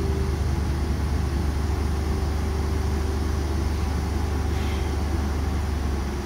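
Diesel engines of a LeeBoy asphalt paver and a dump truck running together, a steady low drone with a faint even whine that fades out about halfway, while the truck's bed tips up to feed asphalt into the paver.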